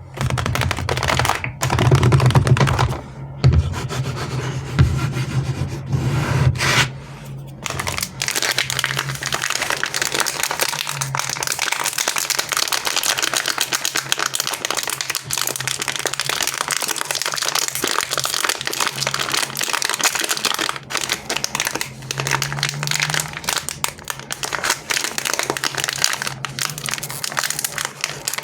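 Plastic and foil candy and chocolate wrappers crinkling and rustling as they are handled, a dense, even crackle that runs on without pause. In the first several seconds it sits under louder thumps and a steady low hum.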